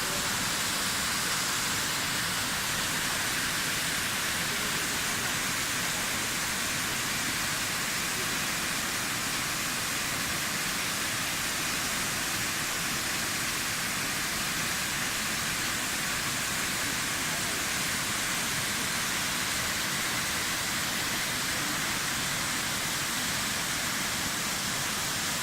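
Waterfall: a steady rush of falling water, even and unbroken, strongest in the high range.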